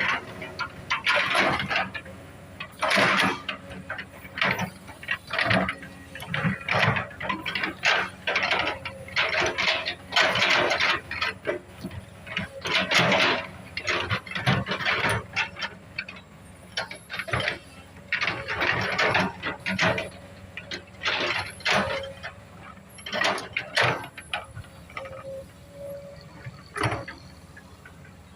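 Komatsu PC200 hydraulic excavator at work: irregular bursts of metallic clanking, rattling and scraping, coming every second or two.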